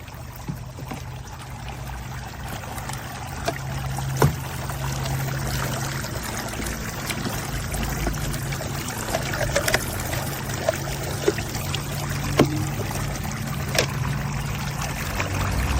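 Water pouring and trickling through a Step2 Rain Showers Splash Pond plastic water table, with a few light taps and splashes scattered through it.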